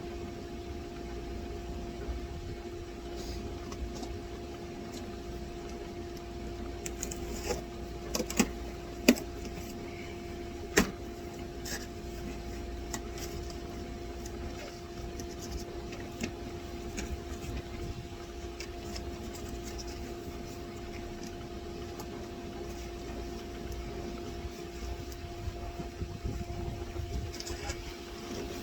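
Steady mechanical hum at a constant pitch over a low rumble, with a few sharp clicks and knocks of hand-tool work on metal about eight to eleven seconds in.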